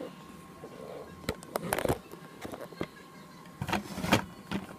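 Plastic toy trucks being handled and pushed about on a playset table: a scattering of irregular clicks and knocks of plastic against plastic, in two small clusters.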